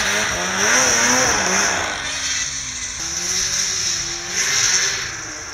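Snowmobile engine revving hard on a powder hillclimb, its pitch rising and falling under throttle, over a steady hiss. From about halfway through, a steadier engine note takes over.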